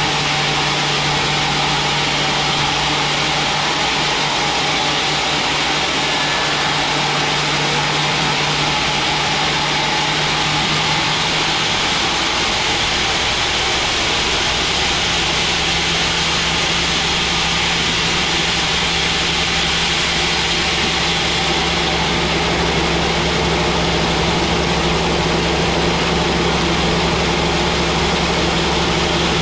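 Band sawmill running and ripping a thick mahogany log into planks, with a steady loud whine and hiss over a motor hum. About twelve seconds in, the hum shifts and a deeper drone joins it.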